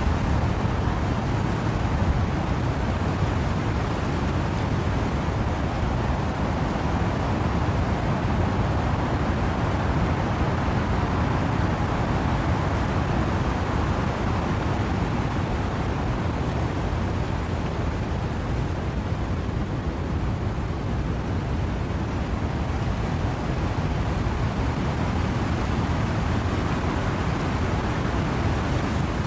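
Steady wind and rain in trees: an even rushing noise with a deep low rumble and no separate drops or gusts standing out.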